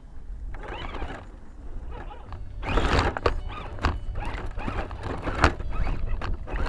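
Axial SCX10 II RC rock crawler clattering over rocks: irregular knocks and clicks of tyres and chassis on stone, over a low rumble. The knocks come thick and fast from about two and a half seconds in.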